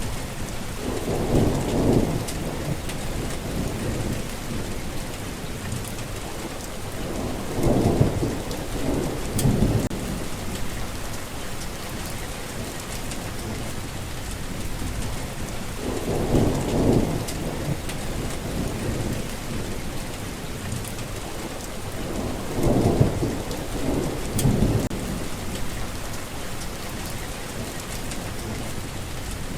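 Steady rain falling, with low rumbles of thunder swelling up about six times, some in pairs a second or two apart.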